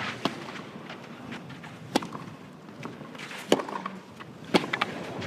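Tennis ball struck back and forth in a clay-court baseline rally: four sharp racquet hits, one every second or second and a half.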